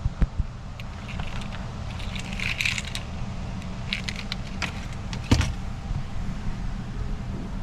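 Light metallic jingling and clicks, with one sharp knock about five seconds in, over a steady low hum.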